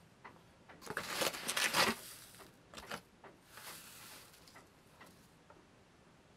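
Plastic bag of sugar rustling as a metal spoon scoops into it, loudest about a second in, followed by a softer hiss of sugar poured off the spoon into a pot and a few light clinks.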